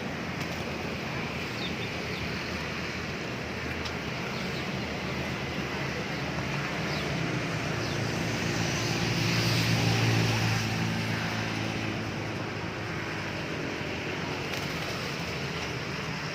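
A motor's steady hum under outdoor background noise, swelling to its loudest about ten seconds in and then fading back, with a few faint short chirps in the first seconds.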